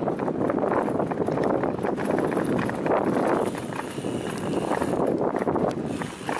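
Bicycle tyres rolling over a gravel path: a dense, irregular crunching clatter of small knocks that swells and eases as the ride goes on.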